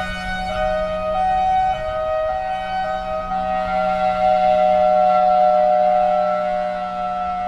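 Federal Signal Thunderbolt 1003 outdoor warning siren sounding its Hi-Lo tone: two pitches a little apart switching back and forth at an uneven rate, at times running together, the erratic 'drunk' Hi-Lo. A steady low hum runs underneath.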